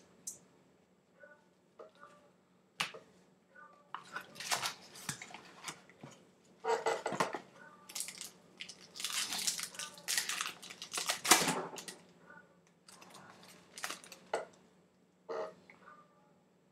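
A trading-card pack's wrapper being torn open and crinkled in the hands, with the cards handled: a run of irregular rustling crackles, thickest through the middle seconds, with a few sharp ticks.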